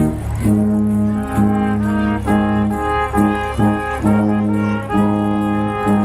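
Background music: held instrumental notes over a steady low bass line, the notes changing every half second or so.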